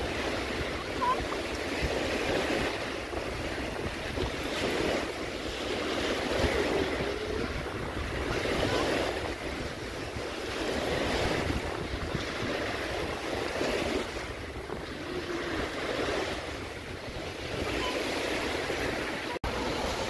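Small waves breaking and washing up the sand at the shoreline, the surf swelling and easing every couple of seconds, with wind rumbling on the microphone.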